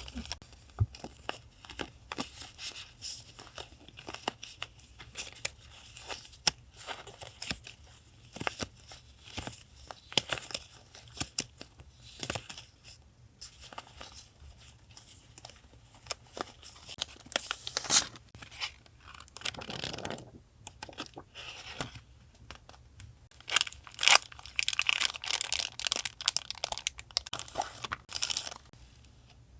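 Paper being handled close up: a run of light clicks, rustles and crinkles, with longer tearing or sliding sounds about eighteen and twenty seconds in and a dense stretch of crinkling near the end.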